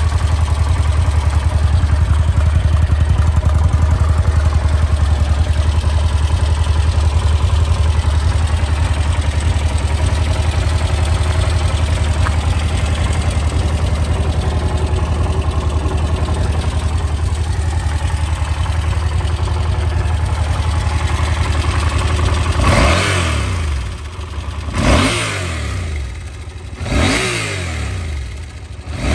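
Yamaha TRX850 parallel-twin motorcycle engine idling steadily through its chrome silencer. From about 23 seconds in, the throttle is blipped in short bursts about two seconds apart, the revs rising sharply and falling back to idle after each.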